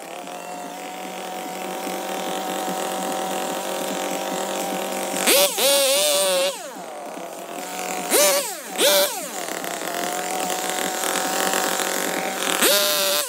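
Stihl two-stroke chainsaw idling between short bursts of full throttle as it cuts through branches: a burst of about a second some five seconds in, two quick revs around eight and nine seconds, and another near the end, each falling back to idle.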